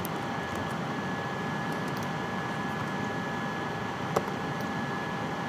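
Steady room hiss with a faint constant whine, broken once by a single sharp click about four seconds in.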